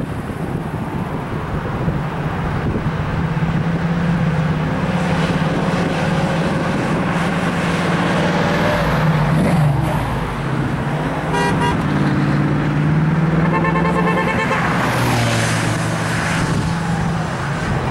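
Cars and trucks passing on a street, with a steady traffic rumble. Past the middle, car horns give two bursts of quick repeated toots a couple of seconds apart.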